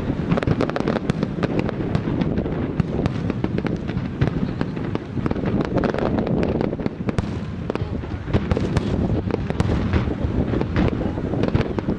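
Fireworks display going off continuously: a dense, rapid run of bangs and crackles, many per second, with no let-up.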